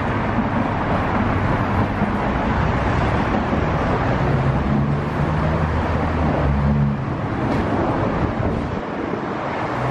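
Steady road-traffic noise with the low hum of vehicle engines idling and passing.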